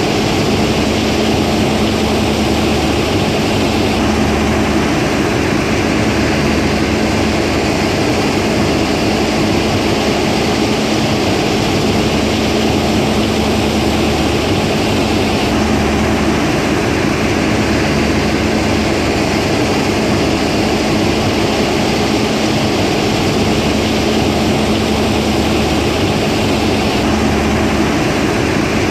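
RESTA mobile crushing and screening line (CH2 jaw crusher, KH3 cone crusher, THH5 horizontal screener) running while it processes stone. The machinery noise is loud and steady, with a constant low hum under it.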